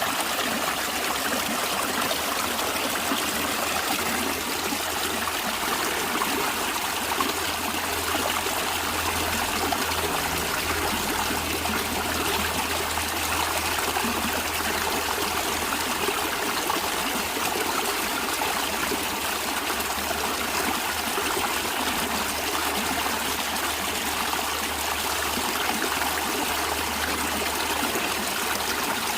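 A stream running steadily, water trickling and splashing over rocks in an even, unbroken flow.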